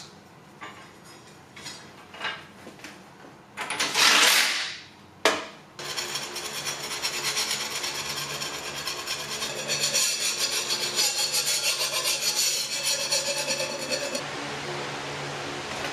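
Hand file scraping in rapid repeated strokes across a freshly quenched carbon-steel blade, knocking off flakes of forge scale. A brief loud rush of noise and a sharp click come before the filing begins.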